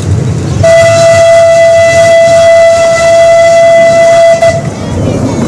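Miniature steam locomotive's whistle blowing one long steady blast of about four seconds, over the low rumble of the passing train.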